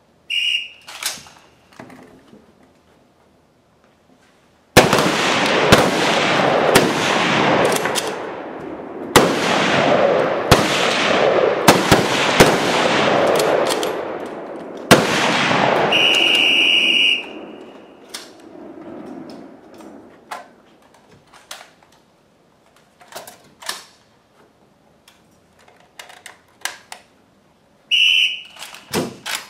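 A short whistle blast, then a relay of service rifles firing many rapid, overlapping shots with echo for about ten seconds. A long whistle blast about 15 seconds after the first signals the end of the timed exposure. Another short whistle blast near the end starts the next exposure.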